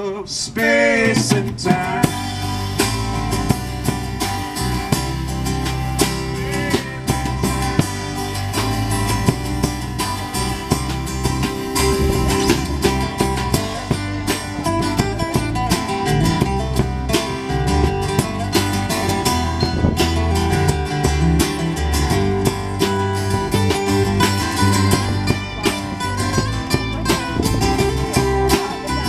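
Live country-style band playing an instrumental passage with a steady beat: strummed acoustic guitar, resonator guitar, upright bass and drum kit. There are sliding notes in the first couple of seconds.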